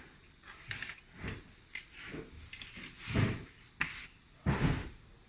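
Ventilator support arm being moved and repositioned: a series of clunks, clicks and short scrapes, loudest about three seconds in and again near the end.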